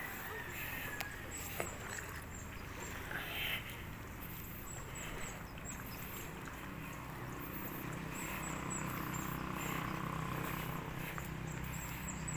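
Outdoor ambience: a steady low hum with scattered faint, high-pitched chirping throughout.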